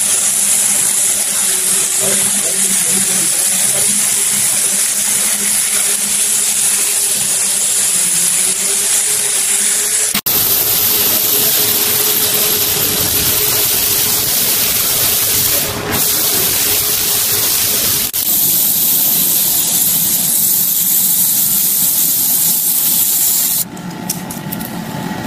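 A pneumatic random orbital sander whirs against steel armour plate with a steady hum over air hiss. About ten seconds in it cuts to the even, strong hiss of compressed-air paint spray guns. Near the end the hiss stops and a quieter sound takes over.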